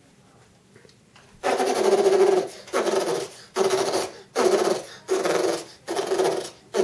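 Battery-powered M16-style toy rifle playing its electronic firing sound effect through a small speaker: seven bursts about 0.75 s apart, each a buzzing rattle over a steady tone, starting with a short falling sweep. The first burst comes about a second and a half in and is the longest.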